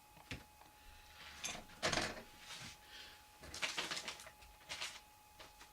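Handling and rummaging noises as objects are shifted about: scattered knocks and rustles, the loudest about two seconds in.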